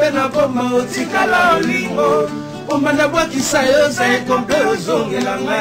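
Male singer singing a Congolese song, accompanied by a band on acoustic guitars.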